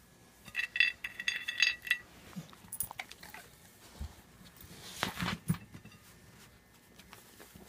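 Small metal objects clinking and jingling in a quick run of bright clicks for about a second and a half, starting about half a second in. After that come softer scattered knocks and rustles of handling.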